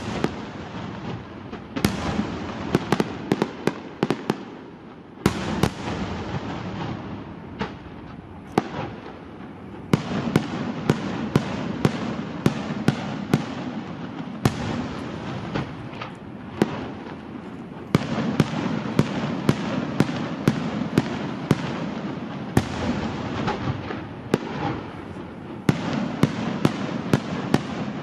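Aerial fireworks display: a quick run of sharp bangs, about one or two a second, over continuous crackling and rumble. It grows denser and louder about ten seconds in and again near two-thirds of the way through.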